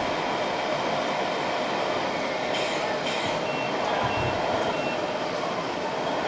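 Steady mechanical running noise of an RC scale model SLT Elefant tank transporter driving with a Leopard tank on its low-loader. Two short hisses come about two and a half and three seconds in, followed by a few faint short high beeps.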